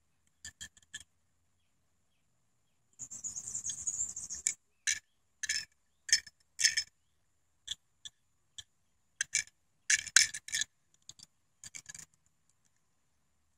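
Light clicks and small rattles from a toy car being handled and turned over in the hand, with a short rustle about three seconds in.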